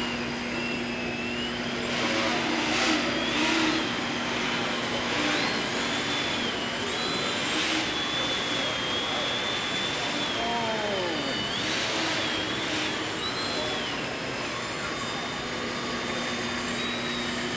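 Electric motor and propeller of an indoor radio-controlled model Yak plane whining, the pitch wavering up and down as the throttle changes, over a steady low hum.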